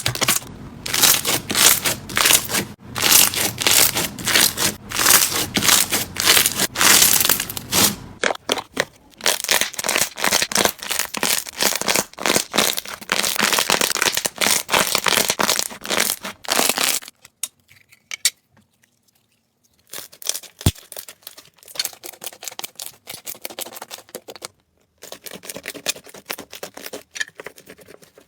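Slime being squeezed and poked by hand, giving dense crackling, clicking pops. It comes in several separate stretches with a short near-silent gap in the middle.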